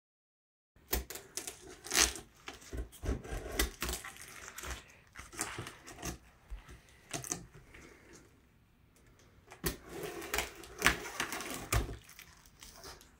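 Packing tape being stripped from the seam of a large cardboard carton and the cardboard flaps pulled open: a busy run of sharp clicks, crackles and scrapes starting about a second in, with a quieter spell about two-thirds of the way through.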